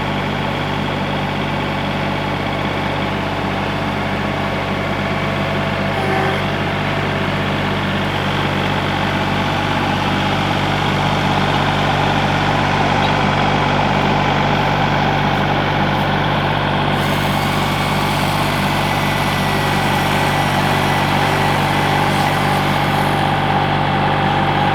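An engine idling steadily, a constant low hum with a rattly edge, that cuts off suddenly near the end.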